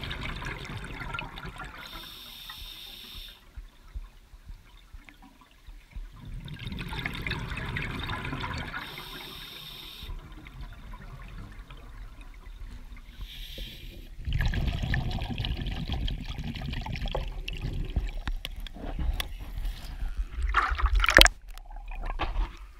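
Muffled water noise picked up by a camera moving underwater, with a few short hisses. It turns louder and deeper about two-thirds of the way through, then gives sharp splashy sloshes near the end as the camera reaches shallow water.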